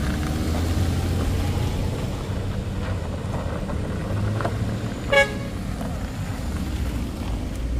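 Vehicle engine running steadily, with one short horn toot about five seconds in.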